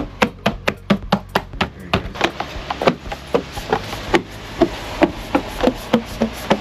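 PVC cable trunking lid being knocked and pressed home onto its base by hand: a quick run of sharp plastic clicks and taps, about three to four a second.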